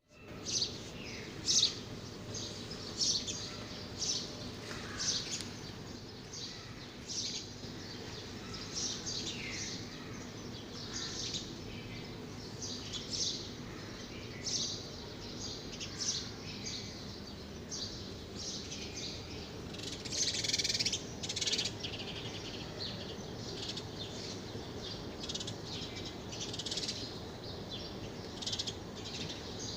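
Birds chirping, many short high calls over a steady low background hum.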